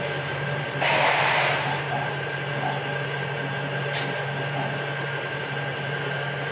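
Milling machine running, its 1-inch drill bit cutting slowly into a metal hammer head: a steady motor hum with a thin high whine over it. A short burst of hissing noise comes about a second in, and a single sharp click about four seconds in.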